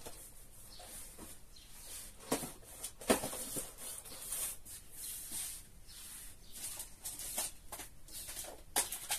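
Plastic shopping bags rustling and crinkling as groceries are rummaged through and handled, with a sharp knock about three seconds in and another near the end.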